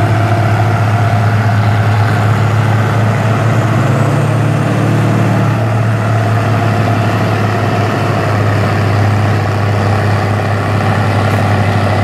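Diesel engines of a Massey Ferguson 1155 and an International 956 XL tractor hitched in tandem, running hard under full load as they drag a pulling sled. A steady heavy drone whose note rises briefly about four seconds in, then settles back.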